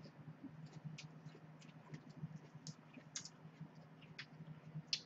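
Faint, irregular soft clicks and crackles of raw leafy greens being folded by hand and chewed, over a low steady hum.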